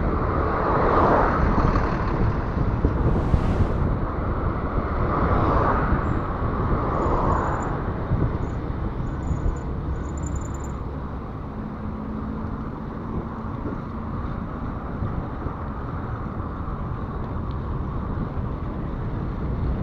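Wind rumbling on a handlebar-mounted camera's microphone during a mountain bike ride, with road traffic passing alongside, including a city bus. The noise swells in the first couple of seconds and again about five to seven seconds in, then settles lower.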